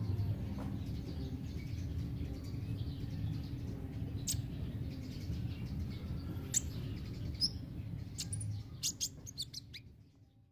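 Sunbird (kolibri ninja) chirping: short, sharp, high chirps, a few spaced out and then several in quick succession near the end. A steady low background rumble runs underneath, and it all fades out at the very end.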